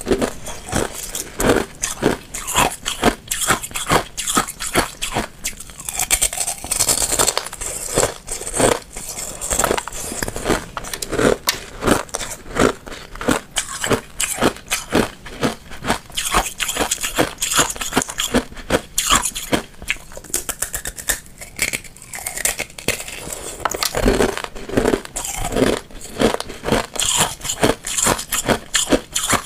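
Thin shells of clear ice bitten and crunched close to the microphone: a dense, uneven run of sharp cracks and crackles with chewing.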